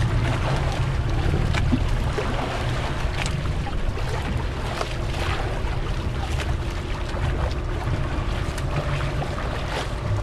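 Open-sea ambience aboard a small fishing boat: a steady low rumble of wind on the microphone, with water washing against the hull and scattered small knocks and splashes.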